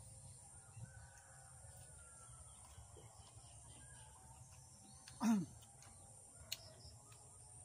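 Quiet farmyard ambience: faint bird chirps over a steady high hiss. About five seconds in comes one short, loud cry that falls sharply in pitch.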